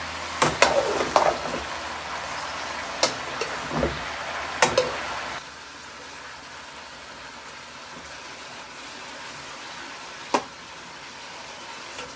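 Sliced bell peppers and onions sizzling in a pan as a metal spoon stirs them, knocking and scraping against the pan several times in the first few seconds. The sizzle drops quieter about five seconds in, and one more knock comes near the end.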